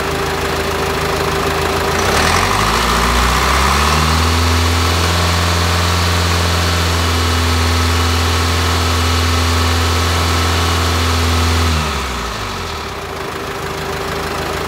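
2010 Subaru Forester's flat-four boxer turbodiesel idling, then revved up about two seconds in and held steady at about 2,500 rpm for some eight seconds before dropping back to idle, as a DPF back-pressure test.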